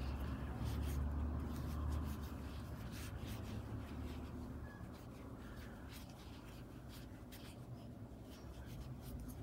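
Faint scratchy rubbing and rustling as hands and wooden chopsticks push fibre stuffing into a crocheted amigurumi piece, a little louder in the first few seconds.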